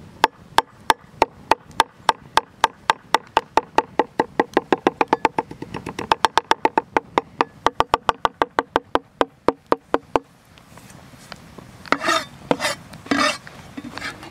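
A Serbian chef's knife chopping fresh dill on a cutting board: steady, sharp knife strikes, about three a second at first and quickening to about five a second, stopping about ten seconds in. A few short scrapes follow near the end as the chopped dill is gathered into a pile.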